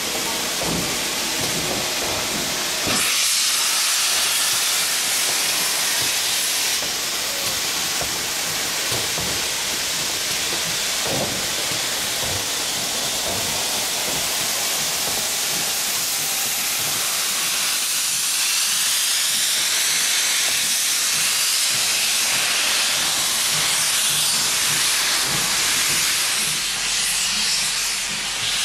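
Steam hissing steadily from standing Great Western steam locomotives, growing louder about three seconds in.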